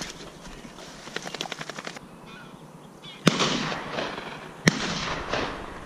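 Two 12-gauge shots from a Browning A5 semi-automatic shotgun, about a second and a half apart, each a sharp crack followed by a fading echo. Before them comes light rustling and crackling of dry reed underfoot.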